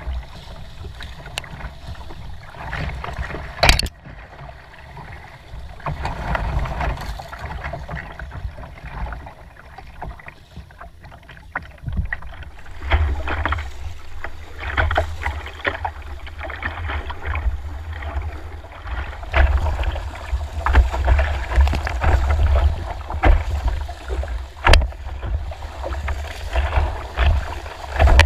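Kayak paddle strokes splashing and dripping on calm river water, with one sharp knock about four seconds in. About halfway through this gives way to louder rushing whitewater slapping against the plastic kayak hull, over a low rumble.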